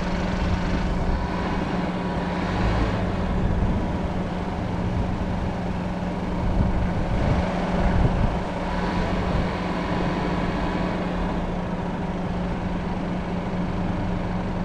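An engine idling steadily, a constant hum with low rumbling underneath.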